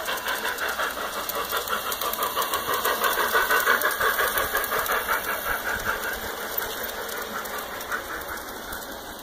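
Garden-scale model steam train running past on its track, a rapid rhythmic clatter. It is loudest about three to four seconds in as the locomotive passes close, then fades.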